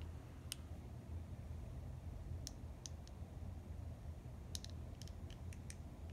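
Faint, scattered small clicks from a thin metal eyeglass frame being bent by hand at the bridge, more of them in the last two seconds, over a steady low hum.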